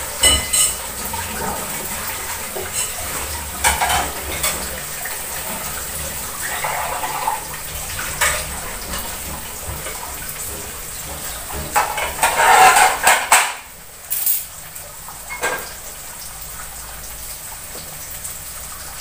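Dishes and metal cutlery clattering and clinking now and then, with the loudest run of clanks about twelve seconds in.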